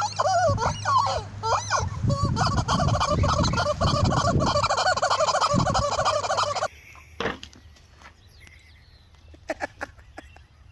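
Turkeys gobbling, loud rapid warbling calls overlapping one another, which cut off abruptly about two-thirds of the way through; after that only a few faint clicks.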